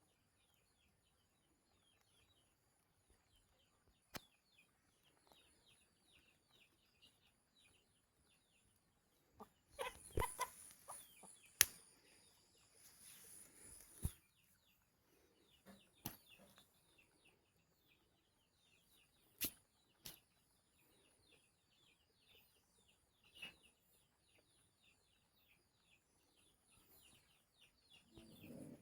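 Chickens clucking faintly, with many quick short calls running throughout, a few sharp clicks, and a louder rustling patch about ten seconds in.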